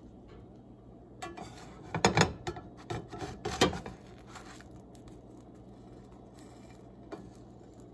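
Slotted spatula scraping and tapping against a frying pan as it slides under a thin pancake and presses it down, a flurry of scrapes and knocks in the first half and a single tap near the end. A faint steady hum runs underneath.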